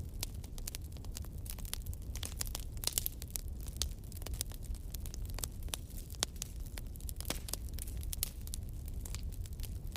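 Bonfire crackling: irregular sharp pops and snaps over a steady low rumble.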